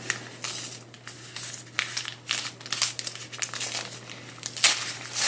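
Brown paper Amazon mailer crinkling and rustling as it is handled and pulled open by hand, in irregular crackles with a louder one near the end.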